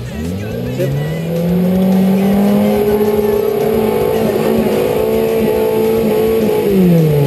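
Off-road 4x4's engine revving up hard and held at high revs while the vehicle climbs a rutted dirt trail, then dropping off near the end.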